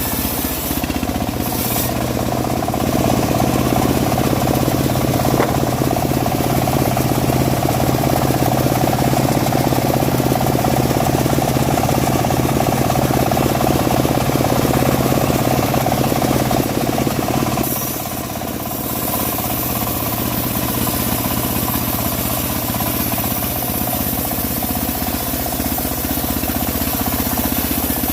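Engine-driven homemade bandsaw mill running steadily as its blade saws through dry teak. The sound dips briefly about two-thirds of the way through, then carries on a little quieter.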